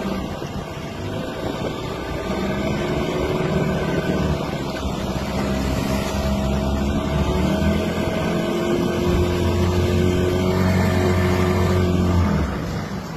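A motorboat engine running steadily over rushing water and wind, easing off near the end.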